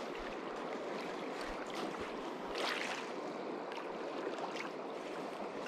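Small river waves lapping at a gravel shore: a steady wash of water, slightly louder about two and a half seconds in.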